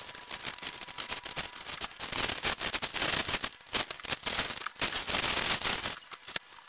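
Brown packing paper and bubble wrap being ripped off a parcel and crumpled: a dense run of crackles and tearing, loudest in the middle, dying away near the end.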